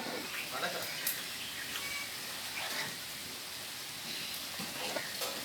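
Chicken frying in a pot with a steady sizzle, with faint voices in the distance and a brief bird chirp about two seconds in.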